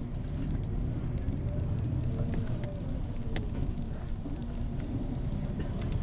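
Bus engine and road rumble heard from inside the cabin as the bus pulls away, a steady low drone with a few light clicks and rattles.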